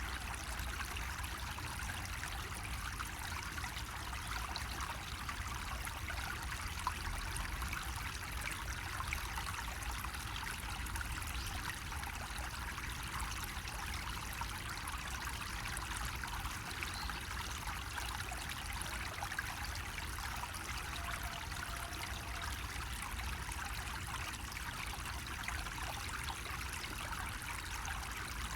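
Water trickling and splashing steadily from a bamboo spout into a basin, an even unbroken running-water sound.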